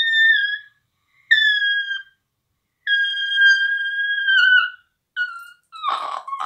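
High whistling notes blown at the mouth: three long held tones, each dipping slightly in pitch as it fades, then a short note and a rougher, lower, raspy sound near the end.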